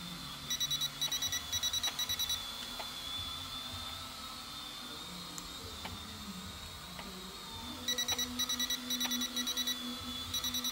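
S162 toy quadcopter drone hovering with a faint steady high whine, while rapid electronic warning beeps sound in quick trains of about four. The beeps come for about two seconds near the start and resume about eight seconds in.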